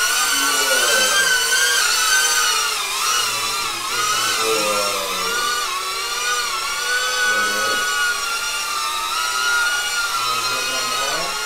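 Shendrones Squirt HD FPV quadcopter flying close by, its propellers giving a loud, high, multi-tone whine that wavers up and down in pitch as the throttle changes.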